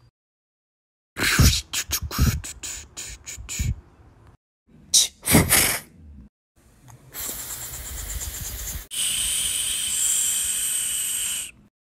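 Beatboxing: two quick runs of sharp mouth-made pops and clicks, then a long hiss that turns louder and steady for the last few seconds.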